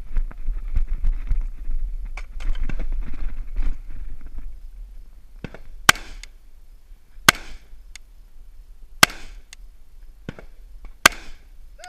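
Four rifle shots from an AR-style rifle, spaced about one and a half to two seconds apart: slow, aimed fire at long-range targets. They come after a few seconds of rustling and scuffing while the shooter moves into position.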